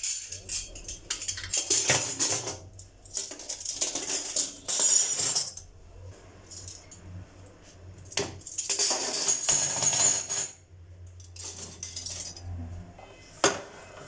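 Clinking and rattling of small hard objects, in two long irregular bouts with quieter stretches between.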